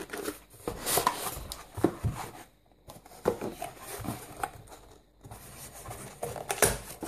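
Cardboard packaging being handled and unfolded by hand: flaps rubbing, scraping and tapping irregularly, with two brief pauses about two and a half and five seconds in.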